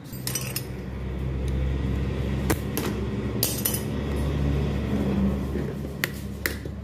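A motor vehicle engine running nearby, a low steady hum that swells over the first couple of seconds and fades near the end. Over it come sharp clicks and ticks of a plastic motor-oil bottle's cap and seal being twisted and pulled open.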